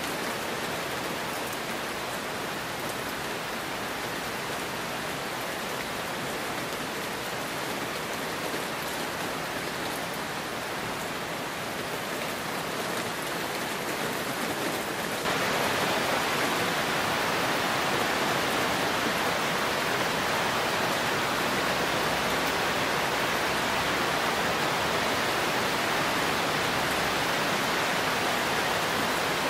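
Heavy rain falling steadily as an even hiss of rainfall, which jumps louder suddenly about halfway through and then holds steady.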